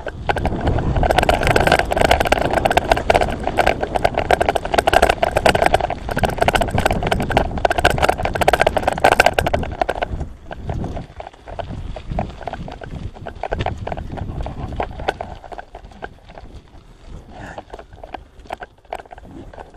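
Bicycle tyres crunching over a gravel track, with the bike rattling over the bumps. The noise is loud and dense for about ten seconds, then drops to quieter, scattered crunches and clicks.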